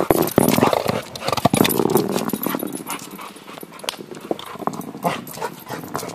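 Pit bull–boxer mix mouthing and pawing a 12-pound metal shotput across asphalt: many sharp clicks and scrapes of teeth and claws on the ball, with the dog's low growls, loudest in the first two seconds.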